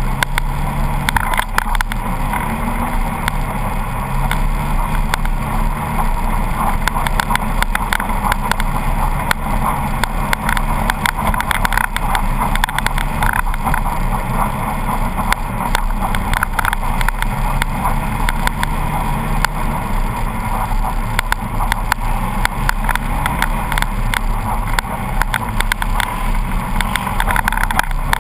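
Polaris RZR 800 side-by-side driving down a snowy track, heard from on board: the engine note rises and falls with speed, and there are frequent short knocks and rattles from the vehicle over the rough surface.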